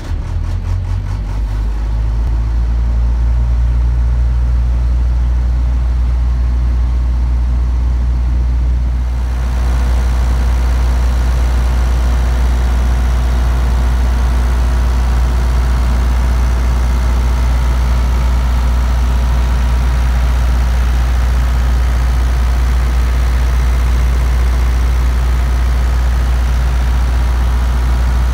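Isuzu B-4BG1 four-cylinder diesel engine of an MQ Power WhisperWatt 45 generator running at a steady speed just after starting. About nine seconds in, the sound turns brighter as it is heard up close through the open enclosure.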